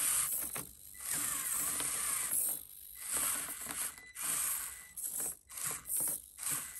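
Basher Rocksta 1/24 mini rock crawler's electric drivetrain whining in on-and-off bursts of throttle as it climbs a rock, ending in several quick short blips.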